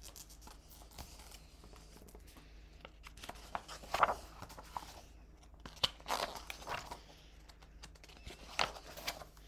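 Pages of a hardcover picture book being turned and the book handled: scattered paper rustles and soft knocks, the loudest about four seconds in and again around six seconds.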